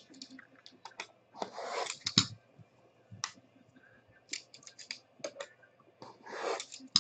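Hands handling a Flawless football card box, a black aluminium briefcase-style case: scattered clicks and taps, with a quick run of clicks about four and a half seconds in. Two longer scrapes come about a second and a half in and again near the end, the last as a red box cutter is run along the case's seal sticker.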